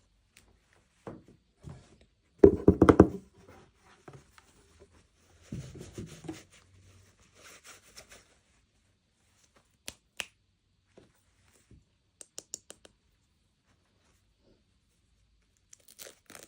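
Packaging being torn open and handled. A loud burst of rapid tearing comes about two and a half seconds in, then softer crinkling rustles and scattered small clicks.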